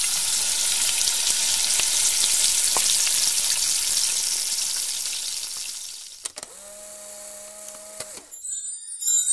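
Battered eggplant slices deep-frying in hot oil in a wok: a steady sizzle with scattered pops, fading away after about six seconds. A steady low hum follows for about two seconds and then cuts off.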